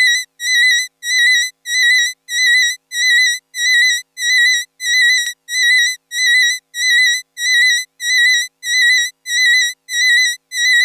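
A high electronic beep with a warbling pitch, repeating steadily about every 0.6 seconds like an alarm or ringtone, and cutting off suddenly at the end.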